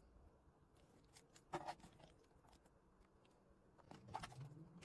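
Near silence: faint room tone with a couple of small, faint clicks, one about a second and a half in and another near the end.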